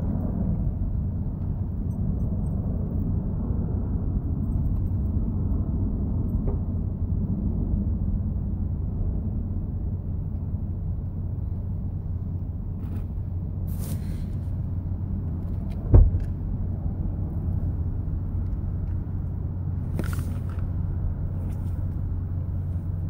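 Steady low rumble with a hum inside a parked car's cabin, with a single sharp thump about two-thirds of the way through and a couple of brief rustles as bedding is handled.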